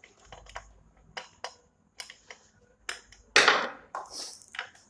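Screws and the metal cover of a ceiling fan being handled and fitted: light metallic clicks and clinks, with one louder clatter lasting about half a second, about three and a half seconds in.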